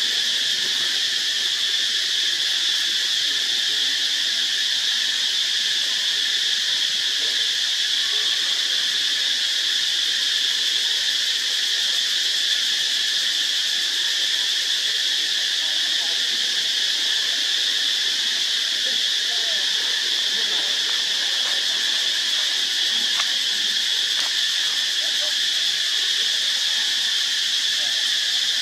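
Loud, steady high-pitched drone of an insect chorus that never breaks or changes.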